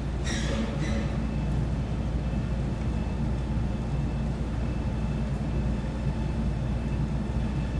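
Steady low background hum, with two short hisses about a second in.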